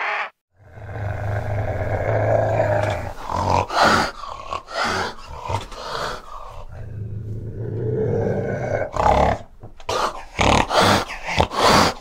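Fishing cat growling: two long, low growls broken up by short, sharp spitting bursts, several of them in quick succession near the end.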